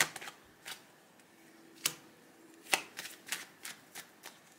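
A deck of tarot cards being shuffled by hand, giving irregular soft clicks and card slaps that come thicker in the second half.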